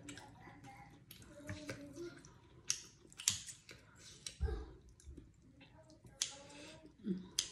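Kitchen scissors snipping through raw squid, a few sharp clicks of the blades with wet handling sounds of the squid in a plastic bowl.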